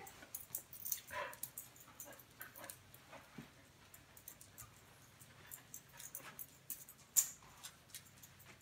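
A dog moving about on a hard floor, its claws and footfalls making scattered light clicks, with one louder knock about seven seconds in.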